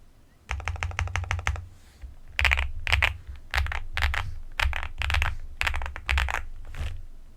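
Akko SPR 75 spring-mounted mechanical keyboard with Akko V3 Cream Yellow Pro linear switches and ABS Cherry-profile keycaps being typed on. A quick flurry of keystrokes comes first, then single key presses about twice a second, each with a deep thud.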